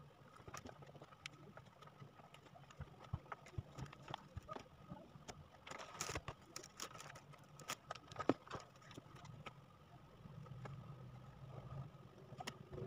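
Wood-grain vinyl contact paper crinkling and crackling as it is handled and pressed onto a cabinet, with irregular sharp clicks and taps and a denser burst of crackling around the middle.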